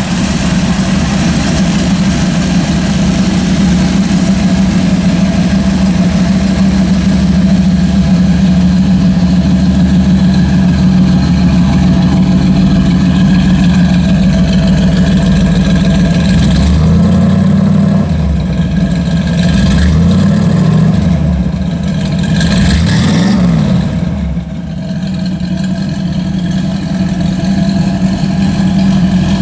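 Performance-built Ford 302 V8 with Hooker headers and dual exhaust idling steadily, then revved briefly three times a little past halfway before settling back to idle.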